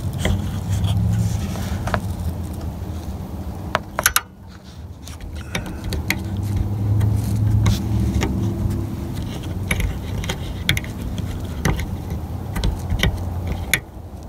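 Small clicks and scrapes of a festoon bulb being worked into the metal spring clips of a Toyota Camry dome light socket, with a sharper click about four seconds in, over a steady low rumble.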